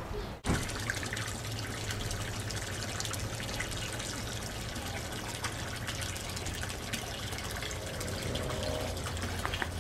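Water trickling and lapping at the water's edge, with a steady low hum underneath; a brief knock about half a second in.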